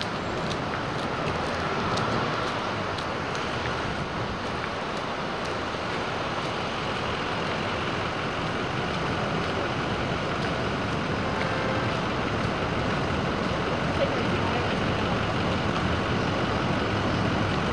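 Steady city street ambience: a continuous wash of traffic noise from cars on the street, with no single event standing out.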